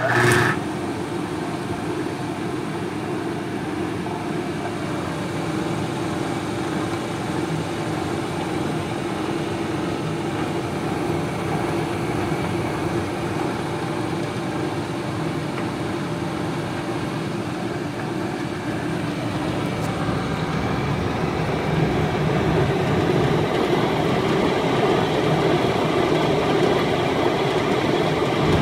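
Belt-driven Greenheck exhaust fan switched on, its electric motor turning the blower through a V-belt and pulleys: a sudden start, then a steady whoosh and hum that grows a little louder about twenty seconds in.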